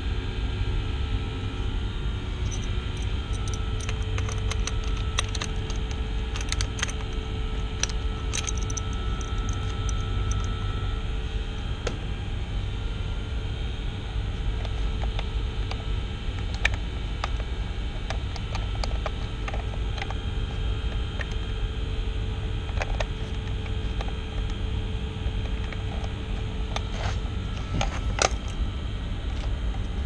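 Steady low rumble of surrounding machinery, with scattered light clicks and small metal rattles as a valve actuator and its fittings are handled. The clicks come thickest in the first dozen seconds and again near the end.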